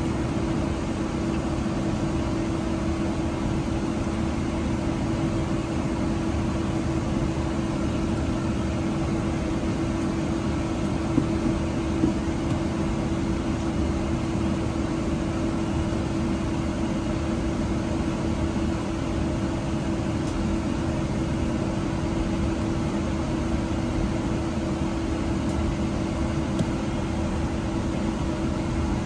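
Steady airliner cabin noise inside a Boeing 777-200ER: an even rushing with a constant hum that holds unchanged throughout.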